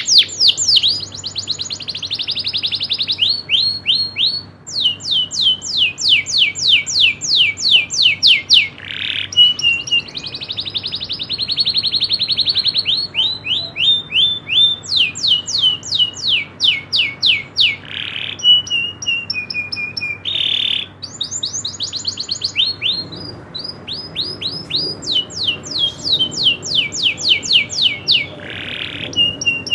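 Domestic canary singing: long, fast rolling trills of rapidly repeated descending notes that change speed and pitch from phrase to phrase, broken up now and then by short harsh rasping notes.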